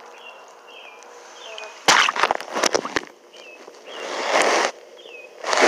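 Handling noise from a phone just taken out of the water: loud rushing, crackling bursts and sharp knocks, one swelling up about four seconds in. Small birds chirp faintly between the bursts.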